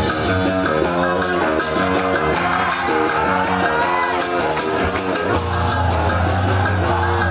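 Rock band playing live: electric guitar and bass over a drum kit, with cymbals struck in a steady rhythm.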